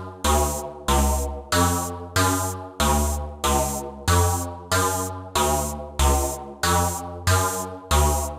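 Intro of a hip-hop instrumental beat: a synthesizer riff of evenly spaced struck notes, a little under two a second, each fading quickly, over a shifting bass note, with no drums yet.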